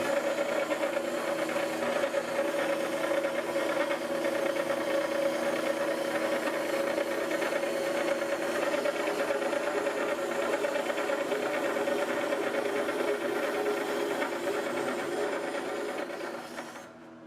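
Wet-wheel whetstone grinder running, its motor humming steadily under a gritty hiss as a steel planer knife is pulled across the turning stone; the sound fades out near the end.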